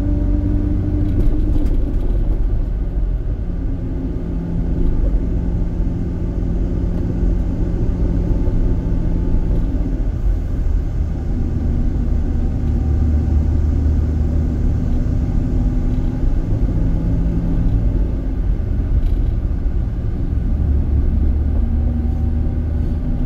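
Motorcycle engine running steadily while riding, with wind and road rumble; its note rises and falls gently as it goes through the bends.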